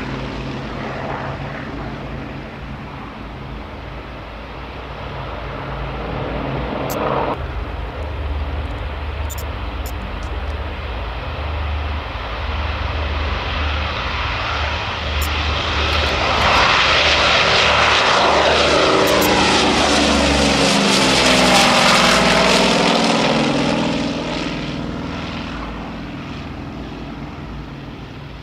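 Douglas DC-6 airliner's four Pratt & Whitney R-2800 radial piston engines and propellers droning in a low flypast. The drone fades a little, then swells as the aircraft approaches, is loudest past the middle with a sweeping, phasing tone as it passes, and fades as it climbs away.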